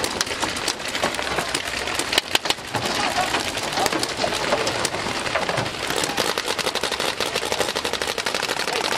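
Many paintball markers firing at once: a dense, unbroken crackle of rapid pops, several shots every second.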